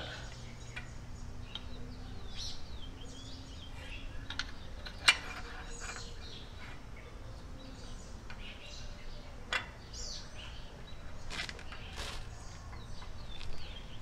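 Small birds chirping in the background, with a few sharp clicks; the loudest comes about five seconds in.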